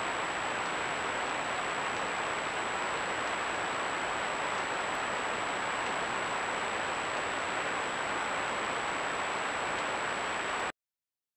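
Steady hiss from a Browning Recon Force Advantage trail camera's microphone and electronics, with a thin, high, steady whine and no animal sound standing out; it cuts off abruptly about ten and a half seconds in.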